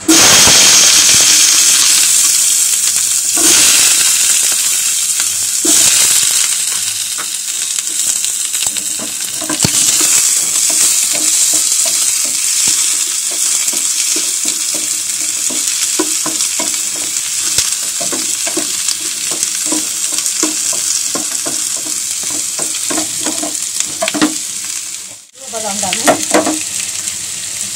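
Sliced onions, with cashews and almonds, sizzling in hot oil in a frying pan. The sizzle starts suddenly and loud as they go into the smoking oil, then settles a little. A spatula stirring and scraping against the pan makes many short clicks.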